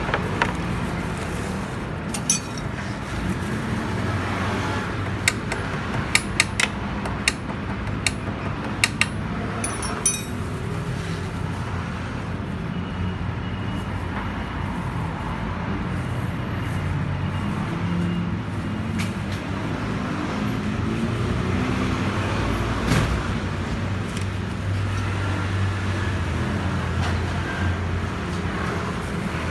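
A steady low vehicle rumble that shifts in pitch in the second half, with a run of sharp metallic clinks in the first third, like hand tools knocking against metal parts.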